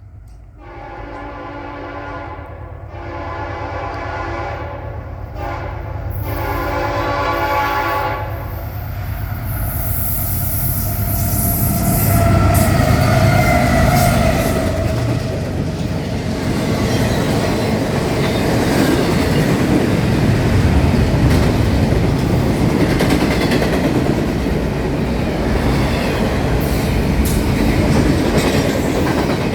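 Freight train's diesel locomotive horn sounding three long blasts, then the two lead locomotives' engines and the train passing close by, with wheels clacking on the rail joints.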